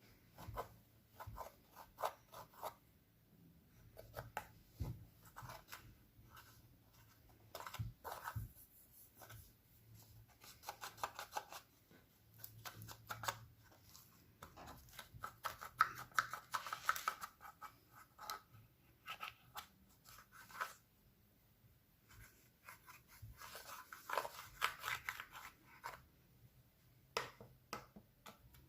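Clear glossy slime being kneaded and stretched by hand, giving irregular sticky clicks and crackles that come in thicker clusters at times.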